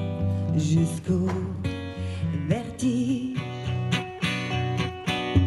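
Background music led by plucked strings, with a wavering melody line over them.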